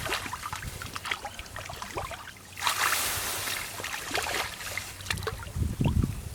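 Hands splashing and sloshing in muddy rice-field water, with scattered small splashes and a louder rushing splash just under three seconds in, lasting about a second.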